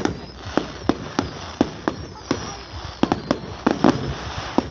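Fireworks going off: a rapid, irregular run of sharp bangs, a few every second, bunching together about three to four seconds in.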